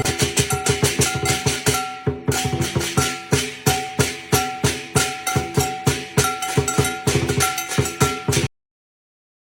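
Lion dance drum music (trống múa lân): quick, even drum strokes mixed with sharp wood-block-like clicks and short repeated ringing notes. It cuts off abruptly near the end, leaving silence.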